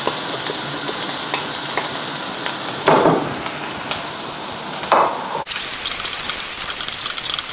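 Diced onions and garlic sizzling in butter in a nonstick frying pan, with a wooden spoon stirring and scraping through them. Two louder, short scrapes come about three and five seconds in.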